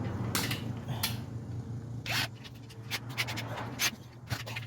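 Short clicks, rubs and scrapes from gas-grill parts and screws being handled and fitted during assembly, about a dozen irregular strokes over a steady low hum.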